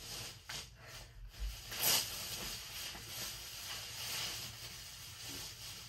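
A plastic protective wrap being pulled and slid off a new flat-screen TV, rustling steadily. There are a few sharper crinkles in the first two seconds.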